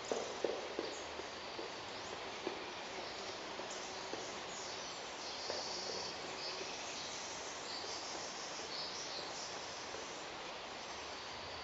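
Pileated woodpecker knocking deliberately on wood. A quick cluster of knocks comes in the first second or so, then single knocks a second or more apart, over a steady hiss of background noise. High calls of other birds come in the middle.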